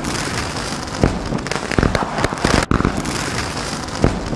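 Edited-in intro sound effect of dense crackling and snapping noise, played over the title cards; it starts over about two and a half seconds in.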